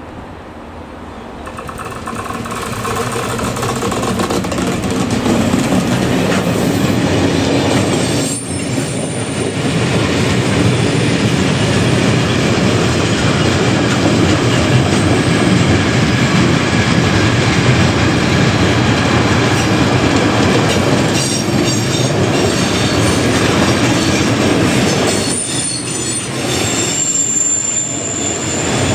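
Freight train hauled by an ÖBB electric locomotive passing close by. The sound builds over the first few seconds as the locomotive comes up. Then a long line of sliding-wall boxcars rolls past with a steady wheel-on-rail rumble and clickety-clack, and brief high wheel squeals a few times.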